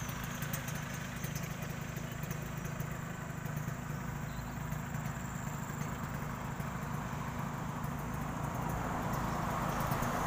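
An engine idling steadily, getting a little louder near the end.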